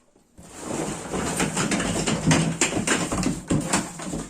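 Cardboard box and plastic packaging rustling and crinkling, with many small clicks and knocks, as the vacuum cleaner is pulled out of its box. It starts about half a second in.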